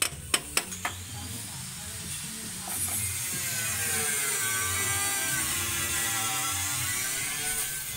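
A few sharp metallic clicks in the first second as the partly stripped Kubota diesel engine is worked on. Then, from about three seconds in until just before the end, a louder long tone with many overtones slowly dips and rises again, over a low rumble.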